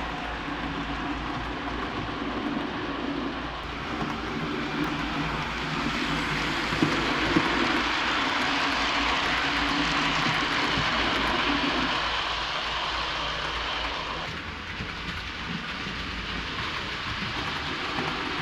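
OO gauge model train, an Accurascale Class 37/4 diesel hauling Hornby Mark 2 coaches, running along the track. Its motor and wheels make a steady running sound that grows louder through the middle as it passes close by, with a couple of sharp clicks over the rail joints.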